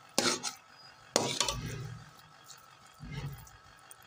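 Slotted metal spatula scraping and clinking against a metal pot as thick carrot halwa is stirred, in a few separate strokes, the loudest about a second in.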